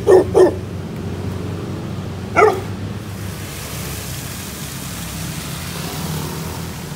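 A dog barking: two quick barks right at the start and one more about two and a half seconds in. After that comes a steady rushing noise of travel along a road.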